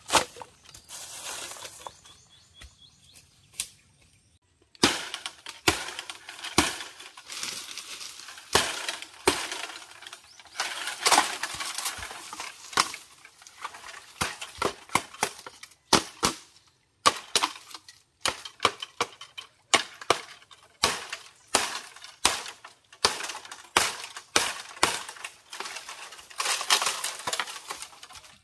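Machete chopping bamboo: many sharp chops at an uneven pace, with dry leaves and sticks rustling and cracking between them. It opens with a rustle of dry sticks being handled, and near the end a bamboo pole is dragged through the brush.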